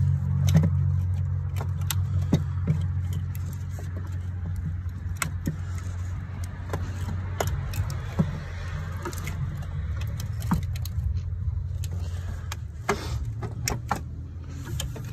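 Scattered metallic clicks and clinks of tools and parts being worked in an engine bay during a starter removal, over a steady low hum.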